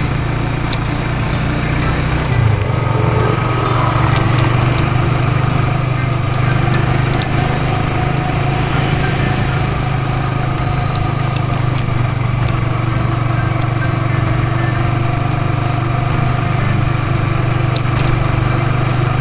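Motorcycle engine running steadily at low road speed, heard from the rider's seat.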